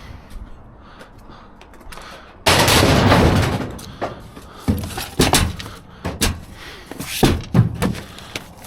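A package being ripped open: a loud noisy rip lasting about a second, then a string of short, sharp knocks and clinks as the metal seals inside are handled.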